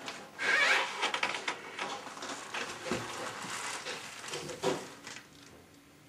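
Rustling and rubbing handling noise with a few light clicks and knocks as the handheld camera is moved about. It dies down near the end.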